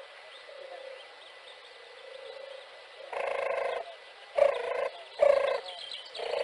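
European turtle dove purring: after a quiet first half, four low rolling purrs come in quick succession, the first the longest. Small birds chirp faintly in the background.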